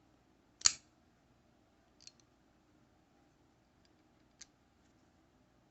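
Boker Magnum Sierra Foxtrot frame-lock folding knife being worked open and shut: a sharp click less than a second in, a softer click about two seconds in, a faint tick past four seconds, and another sharp click at the very end.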